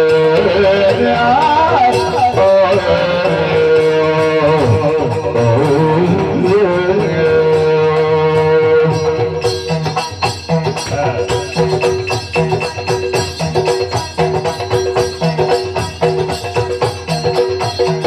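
Live Yakshagana background ensemble with drums over a steady drone. For the first half a gliding melodic line carries over the drone. From about halfway the drumming turns to fast, dense strokes.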